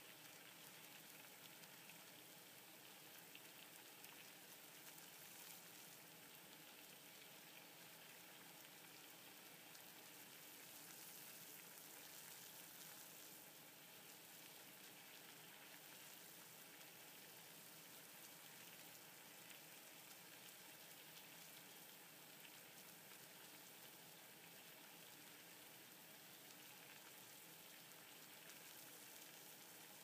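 Water at a full boil in a stainless steel cooking pot on a stovetop: a steady, faint bubbling hiss.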